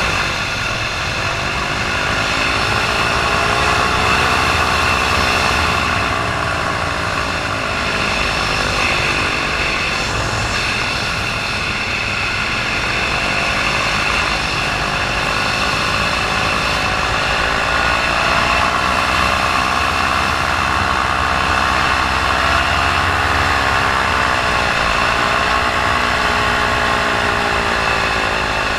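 Paramotor engine and propeller running in flight, the engine's pitch wavering up and down over and over. The motor is losing power with engine trouble, shortly before it cuts out.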